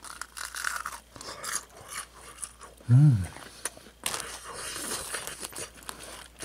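Crunching and chewing of pan-fried, crispy-coated chicken nuggets being eaten. There is a short hum from the eater about three seconds in.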